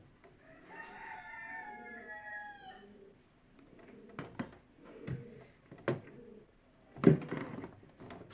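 A rooster crowing once, a wavering call from about one to three seconds in. Scattered sharp clicks follow, and a louder knock comes about seven seconds in.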